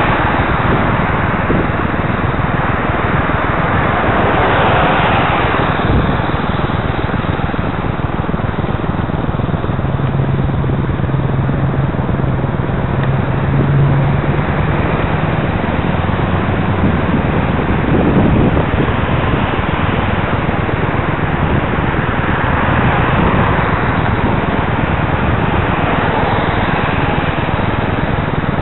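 Road traffic on a wet main road: cars passing with tyre hiss and engine noise, as a steady dense wash of sound. A low engine hum holds for a few seconds near the middle.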